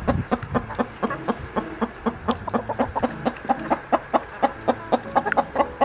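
Domestic hens clucking in a rapid, even run of short clucks, about four a second.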